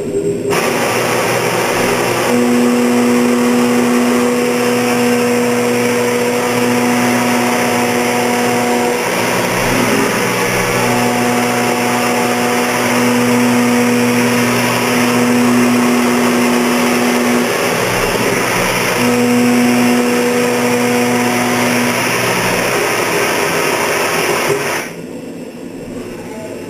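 CNC mill machining 1018 cold-rolled steel at high speed with a 3/4-inch Tungaloy milling cutter: a loud, steady cutting noise with a humming tone from the cutter's teeth that comes and goes in stretches as the tool moves along its path. The cut stops abruptly near the end.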